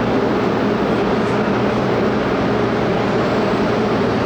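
Chicago 'L' rapid-transit train running, a steady rumble of wheels on rail with a low motor hum.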